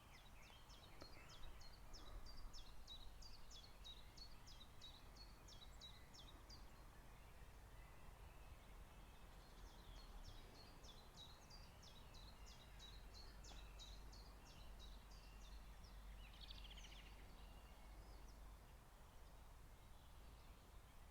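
Faint bird song: a bird repeating short high chirps about three times a second, in two runs of several seconds, the first near the start and the second about ten seconds in, over quiet outdoor background.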